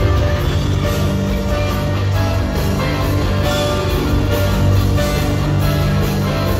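Live rock band playing loudly, with electric guitar, drums and a horn section, heard from the audience floor of an arena.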